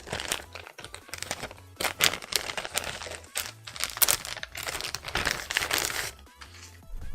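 Plastic packaging crinkling and rustling as an action figure's cloth garment is unwrapped by hand, a dense run of crackles that stops about six seconds in.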